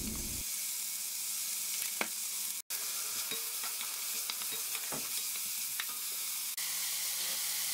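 Chopped onion and garlic sizzling in olive oil in an enamelled pot, stirred with a wooden spoon, with a few light clicks of the spoon against the pot. The onion is being fried until it turns lightly golden.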